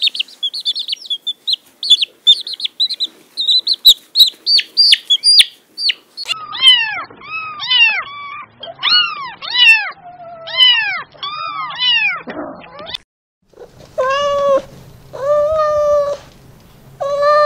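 Young chicks peeping rapidly in high, short chirps for the first several seconds, then kittens mewing in quick repeated calls, and near the end three longer, lower meows.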